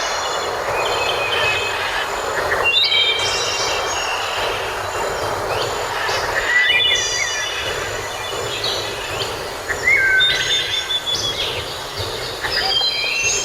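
Several songbirds singing in overlapping whistled phrases, trills and repeated notes, over a steady rushing hiss.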